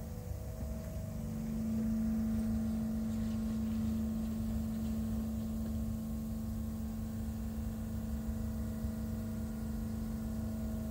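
A steady mechanical hum over a low rumble. A pitched drone in it swells about a second and a half in and then holds steady.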